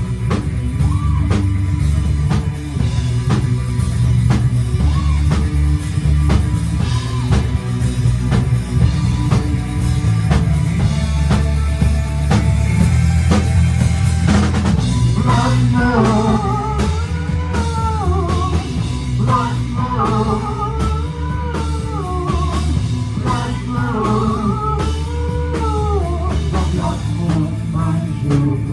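Live gothic rock band playing an instrumental stretch with drum kit, bass and guitar. About halfway through, a wavering lead melody comes in over the band.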